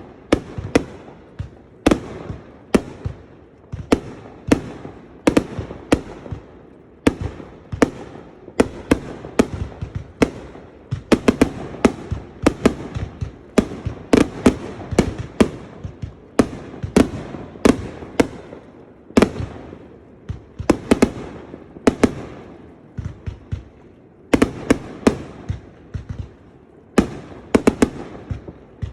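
Fireworks going off: a long run of sharp bangs and pops in quick, irregular succession, several a second, each with a short echoing tail.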